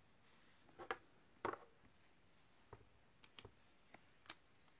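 Near silence with a few faint, scattered taps and clicks of small paper cut-out masks being handled and set down on a card.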